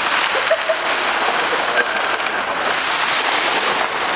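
Large vinyl floor tarp rustling and crinkling as it is dragged and smoothed across a gym floor by many hands, a steady rushing noise.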